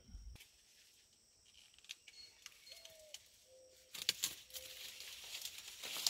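Quiet outdoors with a few faint bird chirps. About four seconds in comes a run of light rustling and crackling from corn stalks and leaves being brushed.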